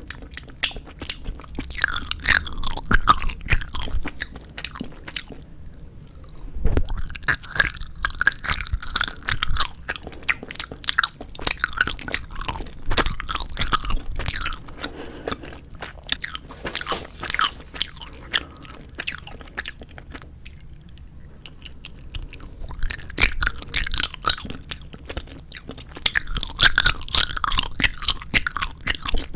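Close-miked chewing and biting of 4D gummy jelly candies: a dense run of small mouth clicks. It eases off briefly about six seconds in and again around twenty seconds in.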